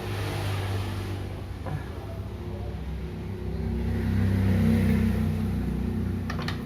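A low, steady engine-like hum that swells louder in the second half, then eases.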